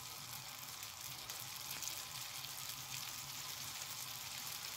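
Pieces of yeast dough (baursaki) deep-frying in hot oil in a small kazan: a steady sizzle that grows a little louder as more pieces go into the oil.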